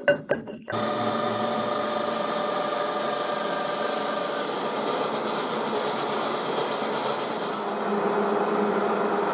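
A few metal clinks, then a metal lathe starts running steadily less than a second in, turning a 42 mm steel pipe while the cutting tool parts it off. Its tone shifts slightly near the end.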